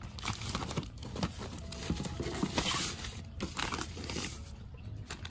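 Paper instruction sheet and a plastic-wrapped hardware packet being handled, rustling and crinkling in short irregular crackles.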